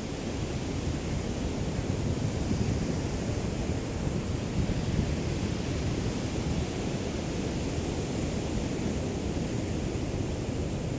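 Small waves of a calm sea lapping on the shore: a steady wash without distinct breaking surges, with low wind rumble on the microphone from a light breeze.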